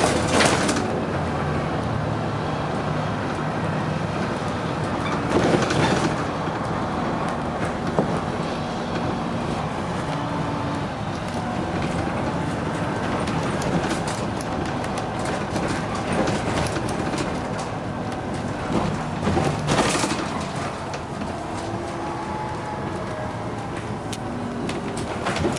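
Dennis Arrow double-decker bus running, heard on board: the diesel engine and ZF automatic gearbox under way, with changing whines and rumble, broken by three short, louder rushes of noise near the start, about six seconds in and about twenty seconds in.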